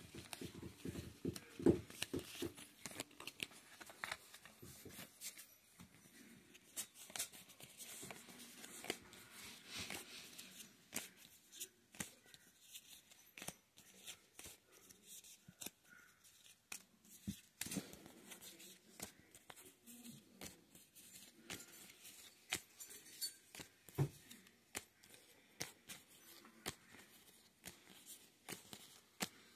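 Cardboard Monopoly property cards being handled and spread out by hand: faint, irregular clicks and light rustles of card against card.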